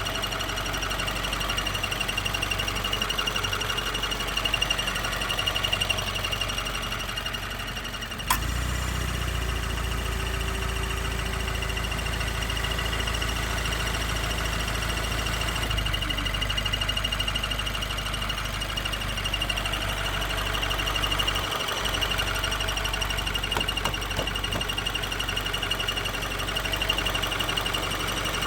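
2016 Subaru WRX's 2.0-litre turbocharged flat-four running warm with a fast, steady ticking, a noise the owner says stops when the clutch is pushed in and gets louder and faster with revs. A sharp click comes about eight seconds in, after which a deeper hum is stronger for several seconds.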